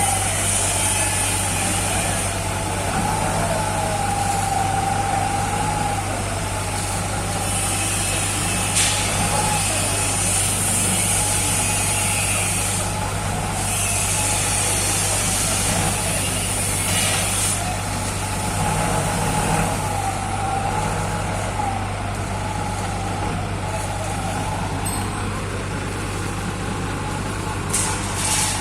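Skid-steer loader engine running steadily under work, with a wavering whine over it and a few sharp knocks.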